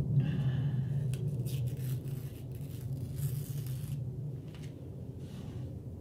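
Magazine paper being handled and pressed onto a collage board: short rustles and crackles, several in the first two seconds and a few more later, over a steady low hum.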